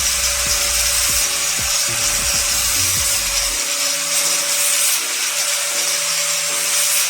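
Angle grinder fitted with a sanding pad, sanding pine wood: a rough, steady hiss over a constant motor whine, with a low rumble that drops away about halfway through.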